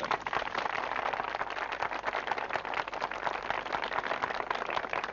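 Crowd applauding: many hands clapping thickly and steadily.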